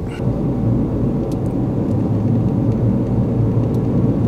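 Car engine and tyre noise heard from inside the cabin as the car pulls onto the road and drives off. A steady low rumble swells slightly at the start as it picks up speed.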